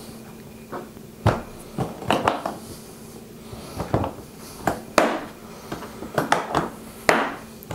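Hard plastic clacks and clicks from a red toolbox being handled and closed up: about a dozen irregular knocks, a few close together, the loudest about five and seven seconds in.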